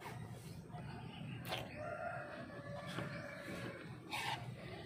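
A rooster crowing faintly: one long held call that starts about a second and a half in and lasts a little over a second.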